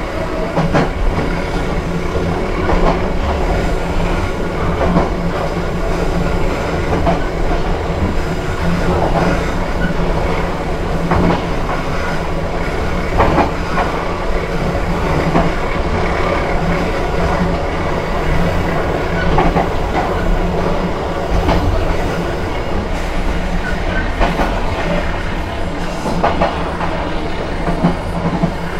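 KA Cikuray passenger train running along the rails, its wheels clacking over rail joints at irregular intervals over a steady low drone.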